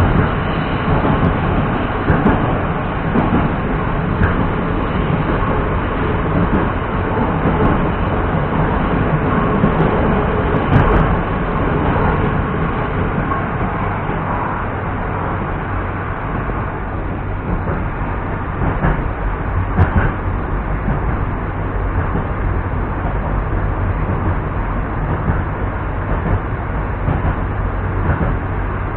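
Moscow metro 81-765.2 train running along the track, heard from inside the car: steady wheel-and-rail noise with a low hum and a few sharp clicks.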